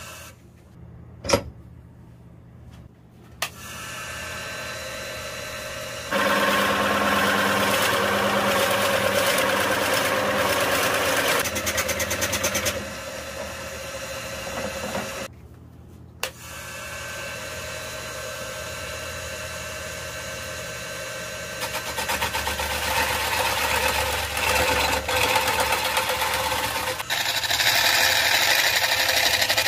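Wood lathe running with a root-burl vase spinning on it, while a drill bit in the tailstock chuck bores into its end and a hollowing tool then cuts inside the opening. The cutting comes and goes in louder stretches, with a sharp click near the start and a brief silent break about halfway.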